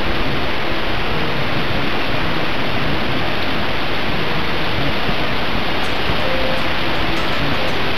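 Steady, even rushing noise, like running water or surf, with no separate events.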